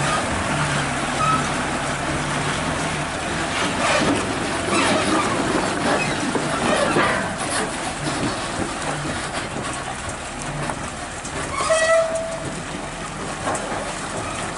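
Volvo FM truck's diesel engine running at low speed under heavy load as it hauls a 34-ton lowboy trailer carrying an excavator. A brief high note sounds about twelve seconds in.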